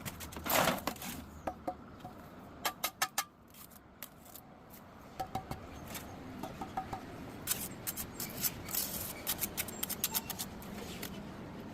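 Irregular series of sharp clicks and taps of hard objects, some ringing briefly, with a louder scraping burst about half a second in.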